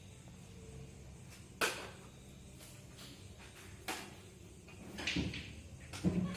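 A few sharp knocks or clacks, the first about a second and a half in and the next two seconds later, followed by a short cluster of handling knocks near the end, over a low steady hum.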